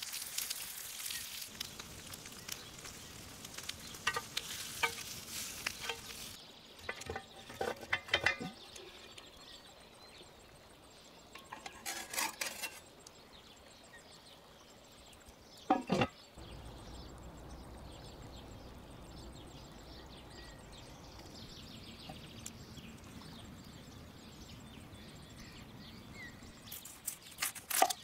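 Pork tomahawk steak sizzling on a hot grill grate for the first few seconds. Then come scattered metal clinks and knocks, with one sharp knock about two-thirds of the way in, as it is handled into a cast-iron Dutch oven. Near the end a knife chops quickly on a wooden board.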